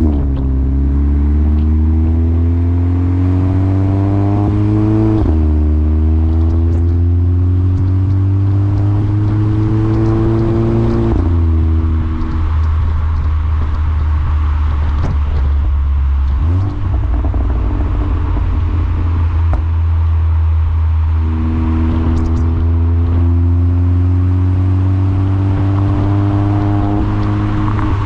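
2014 VW Golf 7 GTI Performance's turbocharged four-cylinder through a CTS Turbo aftermarket exhaust, Stage 2 tuned, accelerating hard through the gears: the pitch climbs steadily and drops at upshifts about five and eleven seconds in. The car is then off the throttle for several seconds with a few faint crackles, before a second long pull from about twenty seconds in.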